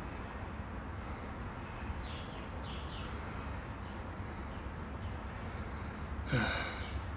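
Steady low hum of room noise, with a few faint breaths about two to three seconds in and a brief voiced sound from a man near the end.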